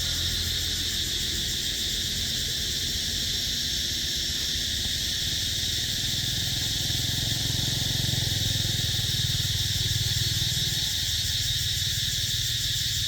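Steady, unbroken chorus of insects, with a low steady hum underneath.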